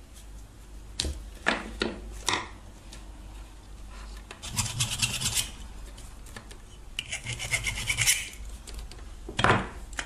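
Small hand file rasping on the soldered metal tip of a discharge cable, to thin it so it fits a terminal block. Two short runs of quick strokes, about four and a half seconds in and about seven seconds in, with a few handling clicks early on and a sharp knock near the end.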